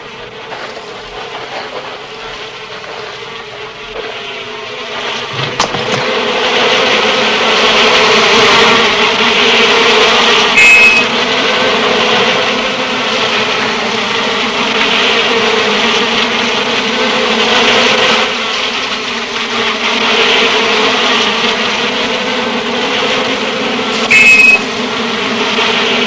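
A swarm of disturbed honeybees buzzing as a honey badger breaks into their hive. The buzz swells about five seconds in and then stays loud and steady. Two short, loud high-pitched squeaks cut through it, about eleven seconds in and near the end.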